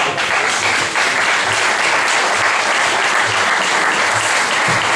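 Audience applauding, breaking out at the start and keeping up steadily.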